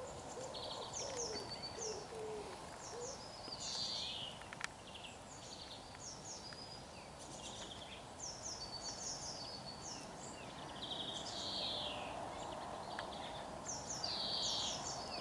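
Small garden songbirds chirping over and over in short, high notes. A low hooting bird call sounds a few times in the first three seconds, all over a steady faint background hum.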